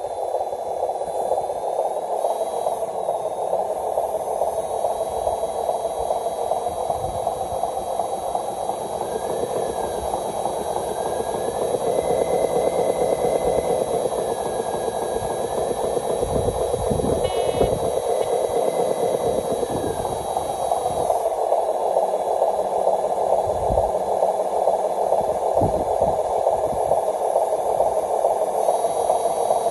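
Radio-controlled model truck's motor and gearbox running steadily as it drives over dirt, its pitch rising and falling a little in the middle. A few low thumps in the second half.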